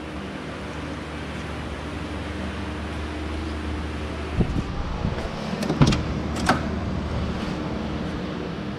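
Steady low background hum, then a few sharp clicks and knocks a little past halfway as the Corvette's driver door is unlatched and swung open, the loudest click about two-thirds of the way in.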